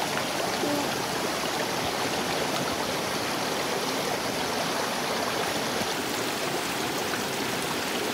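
A shallow rocky stream flowing and splashing over stones, a steady rush of water.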